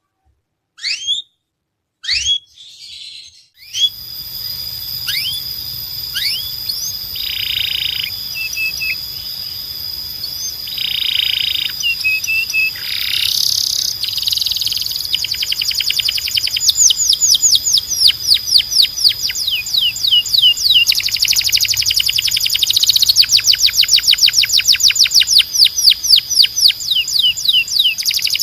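Timbrado canary singing. It starts with a few separate chirps and short silences between them. From about four seconds in the song is continuous, made of fast trills of rapidly repeated high notes that grow quicker and louder toward the end.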